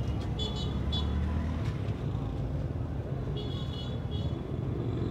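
Steady rumble of a motor vehicle on the move amid road traffic, with two brief high-pitched tones, one about half a second in and one about three and a half seconds in.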